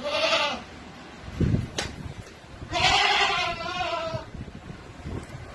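Goat bleating: a short bleat at the start and a longer, wavering bleat about three seconds in, with a low thump and a click between them.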